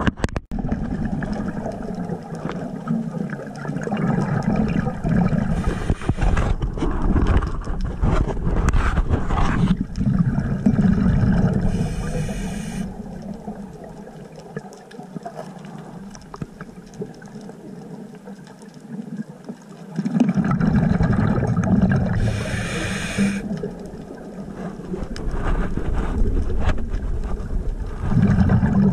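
Underwater sound picked up through a diver's camera housing: the rumbling, gurgling noise of scuba exhaust bubbles from a diver's regulator, swelling and fading with the breaths and quieter for a stretch in the middle. Two short hisses, about twelve and twenty-two seconds in, fit inhalations through the regulator.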